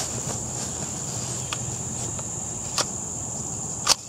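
A few sharp metallic clicks as a Ruger 10/22 rifle's action is handled, three in all, the loudest near the end. Under them runs a steady high-pitched chirring of insects.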